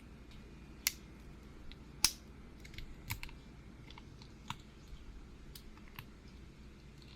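Scattered sharp clicks and taps of small tools against phone parts during a phone battery replacement, irregular, with the loudest about two seconds in.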